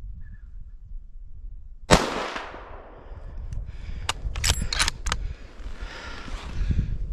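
A single hunting-rifle shot about two seconds in, a sharp crack with an echo that fades over about a second. A couple of seconds later comes a quick run of sharp metallic clicks.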